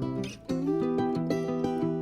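Background music: plucked acoustic guitar, with a brief dip about half a second in.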